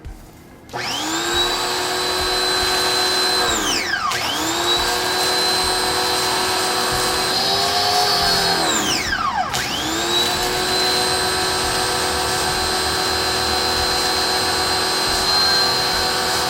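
Ryobi 1800 PSI electric pressure washer's motor and pump spinning up and running with a steady whine, then winding down with a falling pitch as it cuts out, three times over. The motor stops whenever the spray-gun trigger is released.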